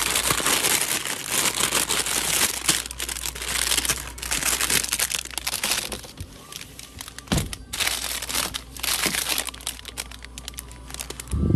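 Crinkling and rustling of plastic packaging being handled, in several long stretches with short lulls between, and a couple of soft thumps.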